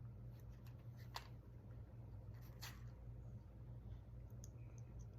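Near silence: a low steady hum with a few faint clicks, the clearest just after a second in and another around the middle.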